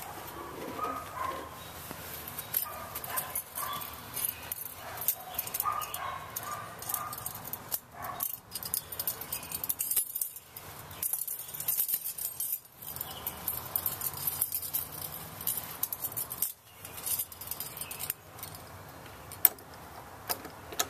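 A ring of keys jangling and clicking as a key is worked into a brass doorknob lock, with a sharp click near the end.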